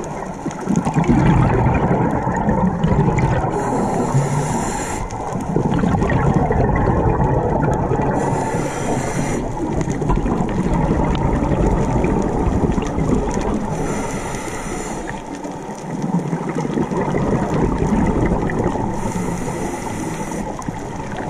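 Scuba diver breathing through a regulator, heard through an underwater camera housing: a hiss of exhaled bubbles for about a second and a half, roughly every five seconds, over a steady low rush of water.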